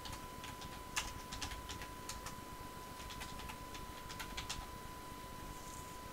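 Computer keyboard being typed on in short irregular runs of key clicks, the sharpest about a second in. A faint steady high tone runs underneath.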